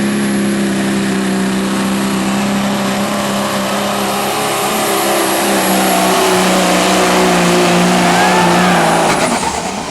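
Diesel engine of a super semi pulling truck running flat out during a pull, a steady drone that grows louder through the second half and cuts off about nine seconds in.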